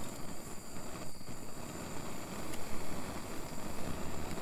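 Handheld gas torch burning with a steady hiss as it heats a bent section of a sickle mower's cutter bar. Wind buffets the microphone with an uneven low rumble.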